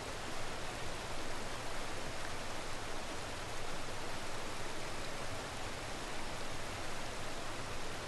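Water rushing and churning over rocks at the foot of a waterfall: a steady, even rush.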